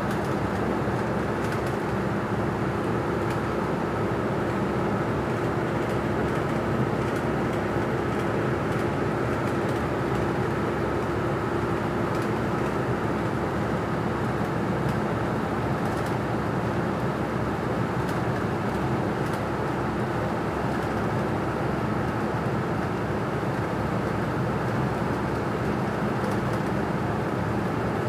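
Steady engine and road noise inside the cabin of a moving bus, an even rumble with a constant low hum and no changes in speed.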